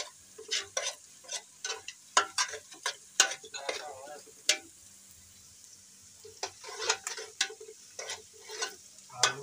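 Metal spoon scraping and knocking against an aluminium pot as onions are stirred while they fry, with faint sizzling. The strokes come quickly in two spells, with a quieter pause of about two seconds in the middle.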